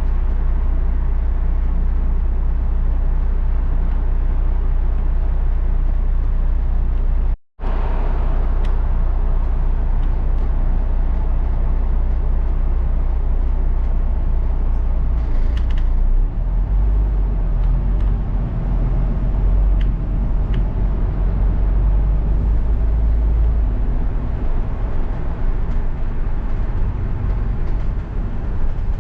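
A London bus's engine and road noise heard from inside the bus as it drives: a continuous low rumble that deepens and grows stronger about halfway through. The sound cuts out for a moment about seven seconds in.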